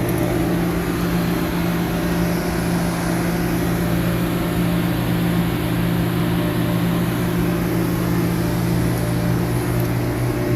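Heavy machinery running steadily: a constant engine drone with a low, even hum that holds the same pitch throughout.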